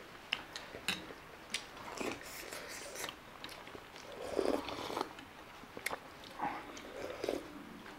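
Close-miked chewing and biting of chicken momo dumplings, a string of short, irregular wet clicks and smacks.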